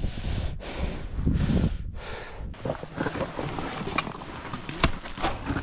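Wind buffeting the microphone, then, from about three seconds in, scrapes and sharp clicks of a climber's gloves and gear against granite rock and ice as he scrambles up.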